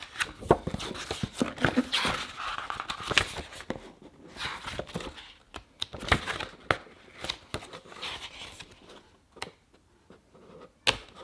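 Paper and cardboard packaging being handled and unpacked: rustling and crinkling with scattered taps and knocks, busier in the first few seconds and sparser after.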